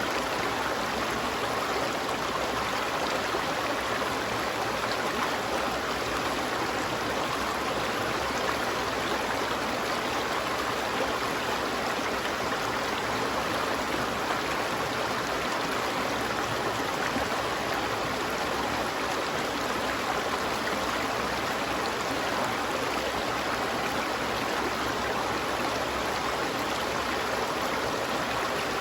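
Water of a stream flowing and burbling steadily, without a break.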